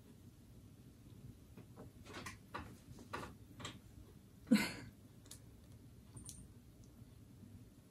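Faint clicks and light taps of a tall cocktail glass being handled on a table as an orange slice is fitted onto its rim, with one louder knock about four and a half seconds in.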